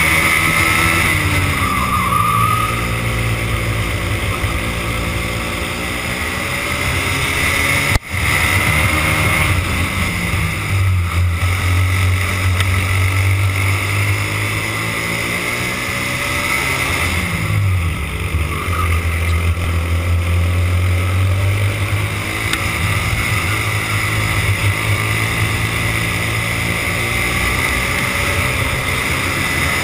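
Racing kart engine heard from the driver's seat at race pace. Its pitch drops off three times as the kart slows for corners and climbs again under acceleration, with a brief click about eight seconds in.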